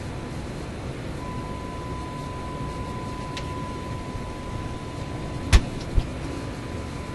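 Steady hiss and rumble of static from an RCA A25 vacuum-tube shortwave radio's speaker during alignment. About a second in, a steady single-pitched test tone comes in and holds, as the set is brought onto the 6100 kHz test signal. Two sharp knocks, about half a second apart, come near the end.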